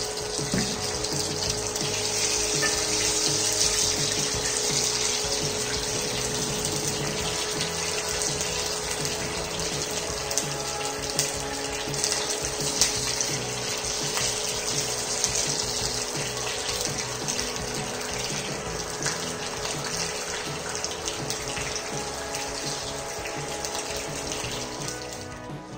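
Boiled eggs and masala-coated potato pieces sizzling steadily in hot oil in a frying pan. A faint steady tone runs underneath.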